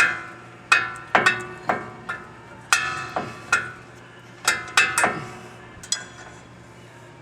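Steel hand tools clanking against each other and on metal, about a dozen sharp clinks and clanks that each ring briefly, spread over the first six seconds.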